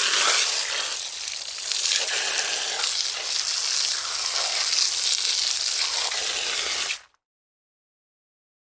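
Water rushing from an outdoor faucet under pressure, a steady hiss that cuts off suddenly about seven seconds in.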